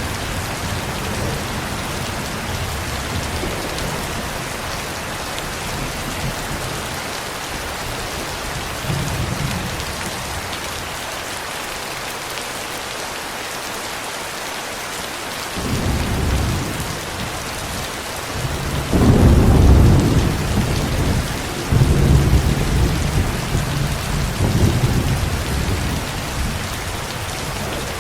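Steady rain with rolling thunder: low rumbles swell in a little past halfway, the loudest peal about two-thirds of the way through, followed by another roll that fades out near the end.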